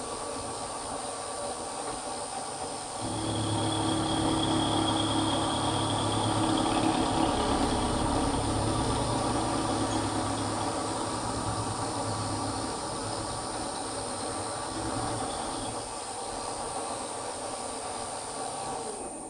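Milling machine running with its end mill plunge-cutting into the end of a slot in the chuck body: a steady motor whine, growing louder and heavier from about three seconds in while the cutter is in the work, then easing off. The machine stops at the very end.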